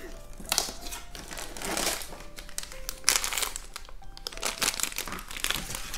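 Paper packaging crinkling and rustling in irregular bursts as a small wrapped toy figure is pulled from an advent calendar compartment and unwrapped.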